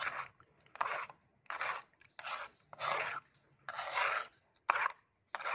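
A spoon scraping round a plastic bowl, mixing curry powder into a thick paste, in repeated strokes a little faster than once a second.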